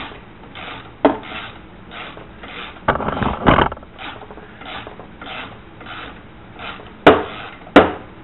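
Torx driver working a tight screw out of a plastic headlight housing: a run of short rasping strokes about twice a second as the handle is turned, with two loud sharp clicks near the end.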